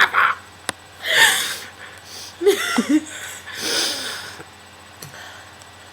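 Breathy, wheezing laughter and gasps: three short breath sounds about a second and a half apart, the middle one with a squeaky catch in the voice.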